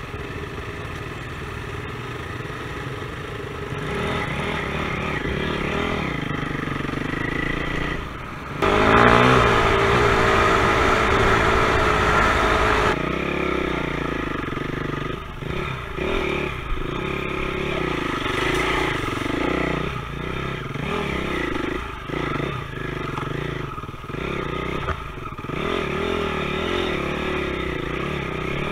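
Dirt bike engine heard from the rider's helmet camera, running at first and then revving hard about nine seconds in. After that the engine pitch climbs and drops over and over as the throttle is opened and shut along a muddy track.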